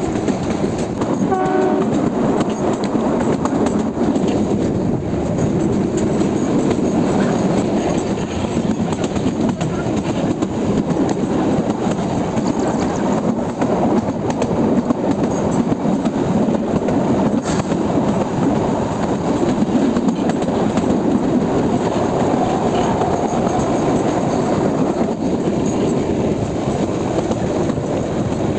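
Kalka–Shimla narrow-gauge toy train running, heard from an open carriage window: a steady rumble of wheels on the rails, with a short horn toot about a second and a half in.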